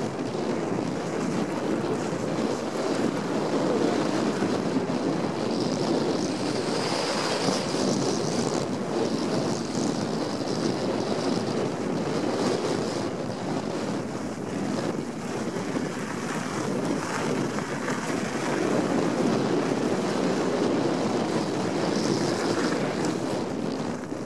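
Wind rushing over the microphone of a mountain bike coasting fast downhill, mixed with the steady rolling noise of its knobby tyres on packed snow, swelling and easing slightly as speed changes.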